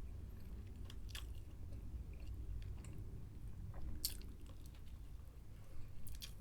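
Close-up chewing of a mouthful of chicken burger with a soft bun, with a few short wet mouth clicks about one, four and six seconds in.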